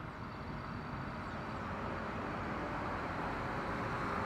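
An approaching train heard down the line, a steady rumble and rail noise growing gradually louder.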